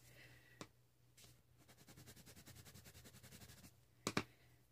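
Near silence with colored pencils being handled: a soft click about half a second in, faint light ticking, and a sharper double click a little after four seconds in.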